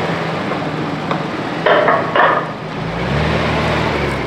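1977 Datsun 280Z's inline-six engine running, its revs rising about three seconds in. Two short, loud sounds come just before the midpoint.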